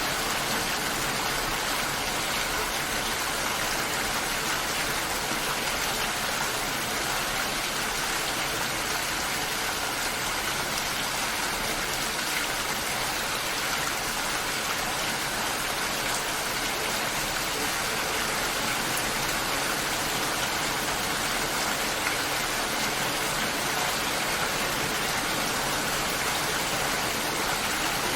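Steady, continuous rain: an even hiss of falling rain without pauses or changes.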